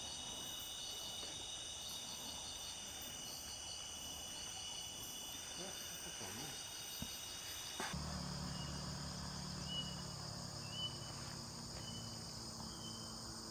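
Insects calling: steady high trills with rapid pulsed chirps. About eight seconds in, the sound changes abruptly to a different pattern of short high chirps over a low steady hum.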